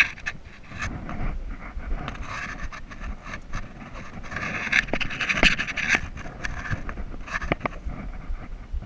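A hiker breathing hard in repeated heavy breaths while climbing, with a few sharp clinks from the steel safety chain in hand.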